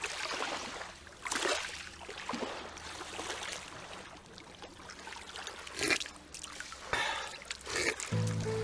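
Small lake waves lapping onto a pebble shore, washing in and drawing back in repeated soft surges. A short low buzzing tone comes in near the end.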